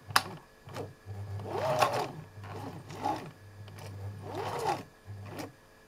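Husqvarna Viking 2000 sewing machine in its low reduction gear, sewing slowly in reverse to lock the stitch through six layers of heavy vinyl with thick Tex 135 thread. The motor hums and whines up and down in a few short runs, with a click near the start.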